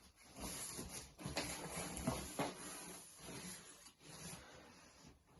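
Faint rustling and rubbing of a jacket being handled and turned over, with a few soft ticks, in stop-start bursts.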